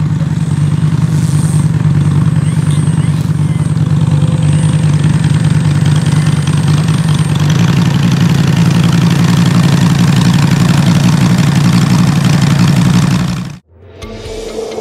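Model airplane engine of the Joker XL tow plane idling steadily as it rolls on the grass. The sound cuts off suddenly near the end and music begins.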